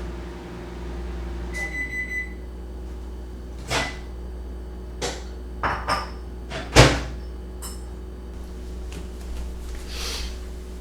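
Kitchen handling sounds over a steady low hum: a short electronic beep about two seconds in, then a string of separate knocks and clunks of doors and containers being handled, the loudest about seven seconds in.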